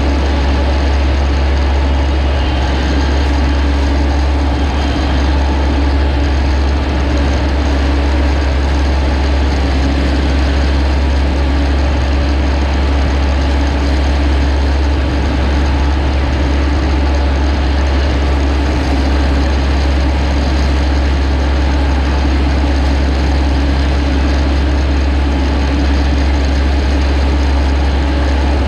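Engine of rice-harvesting machinery running steadily, a deep constant drone with even mechanical noise over it and no change in speed.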